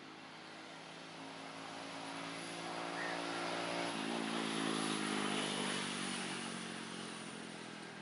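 Engine of a passing motor vehicle, humming louder to a peak about five seconds in and then fading, with a drop in pitch about four seconds in.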